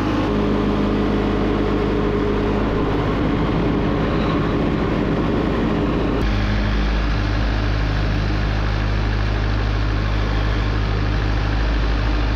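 Wood-Mizer portable band sawmill running steadily, its engine droning as the band blade cuts through a walnut log. The engine tone shifts suddenly about six seconds in.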